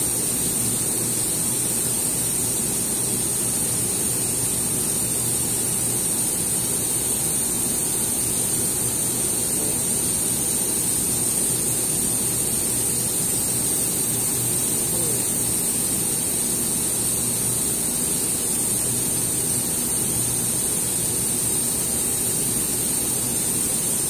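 Steady factory-floor machine and ventilation noise: an unbroken hiss with a constant high-pitched whine and a low hum underneath.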